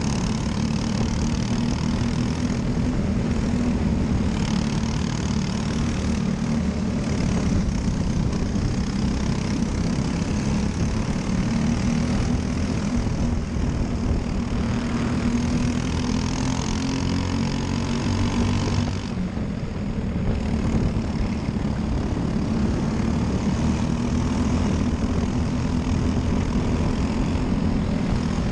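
Briggs & Stratton LO206 kart engine, a single-cylinder four-stroke, running steadily under racing load, with a brief dip in level about two-thirds of the way through.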